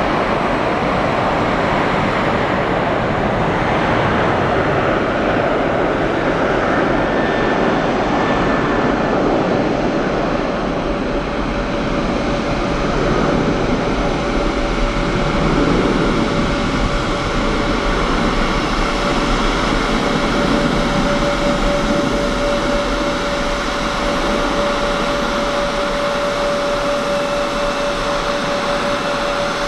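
Boeing 737-800's CFM56-7B turbofan engines at takeoff thrust as the jet rolls down the runway and lifts off. Steady jet engine noise, with a steady whine that grows clearer from about halfway through.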